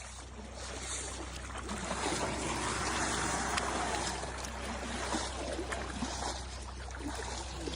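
Water splashing and sloshing around an elephant being bathed, growing louder about two seconds in.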